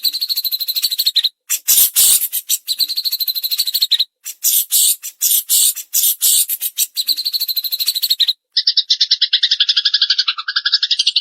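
Recorded songbird calls for bird training: harsh, rapid scratchy chattering typical of a fighting Eurasian tree sparrow, then about eight and a half seconds in a different bird takes over with a fast, evenly pulsed trill, here a cililin's song.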